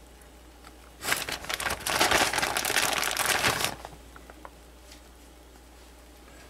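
Plastic bag of shredded mozzarella crinkling as a hand rummages in it for more cheese, a crackly rustle lasting about three seconds from a second in.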